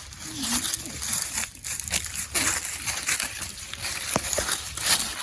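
Dry fallen leaves rustling and crunching in an irregular, crackling patter, with a few faint knocks.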